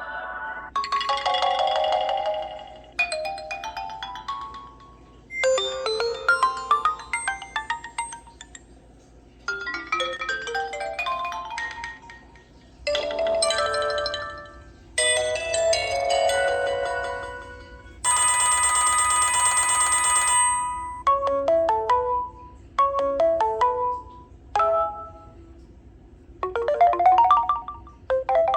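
Preloaded ringtones of an HTC Desire 510 phone played one after another: a string of short electronic melodies a few seconds each, with brief pauses between them. About two-thirds of the way through, one ringtone is a steady ringing tone held for a couple of seconds.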